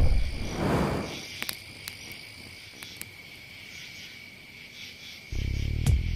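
Chairlift ride into the top terminal: a loud rustle in the first second, then a steady high whine and hiss with a few light clicks. Music starts about five seconds in.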